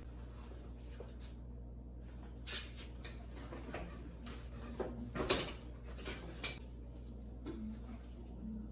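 A few short, scattered knocks and clunks of handling as dirt bikes are shifted around, over a steady low hum.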